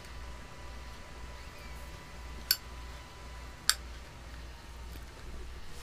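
Quiet room tone with a steady low hum and a faint thin steady tone, broken by two sharp clicks a little over a second apart.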